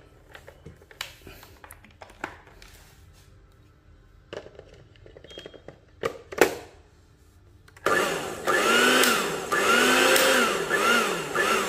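Clicks and knocks as the blender is plugged in and its glass jar is set onto the base, the sharpest knock about six seconds in. About eight seconds in the Tescom 160 W blender's motor starts and runs loudly with the jar empty, its pitch rising and falling about once a second.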